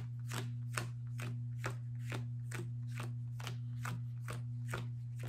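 A deck of sleeved trading cards being shuffled by hand, with a short soft snap of the cards about twice a second in a steady rhythm, over a constant low hum.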